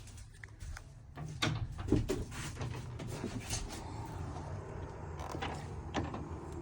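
A few light knocks and scuffs of someone moving about inside a tugboat's hull, over a faint steady low hum. The knocks bunch together about one and a half to two and a half seconds in, with one more near the end.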